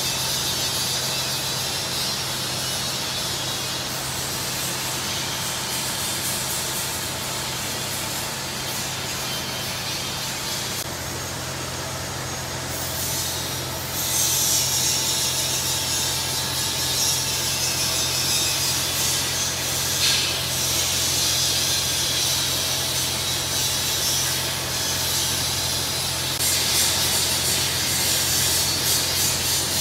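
Double-wire chain link fence weaving machine running: a steady hum under a hiss, getting louder about halfway through.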